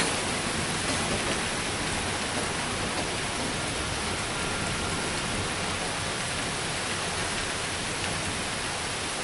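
Heavy thunderstorm rain falling in a steady downpour, a dense even hiss.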